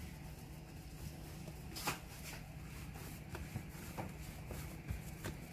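Hands kneading soft flour-and-water porotta dough on a granite countertop: irregular pressing, rubbing and slapping, with the sharpest slap about two seconds in.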